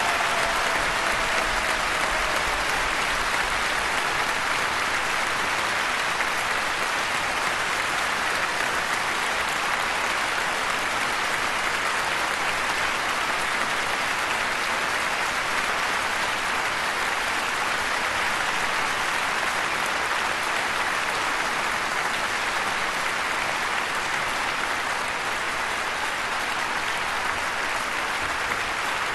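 Sustained applause from a large crowd in a concert hall: a dense, even clatter of many hands clapping, easing slightly near the end.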